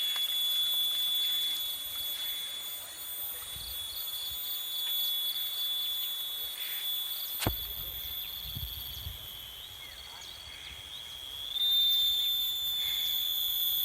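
Steady high-pitched insect drone, with a run of short, evenly spaced chirps a few seconds in and one sharp click about halfway through.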